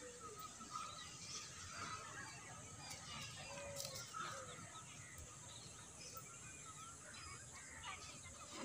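Faint outdoor ambience with many short bird calls and chirps scattered throughout.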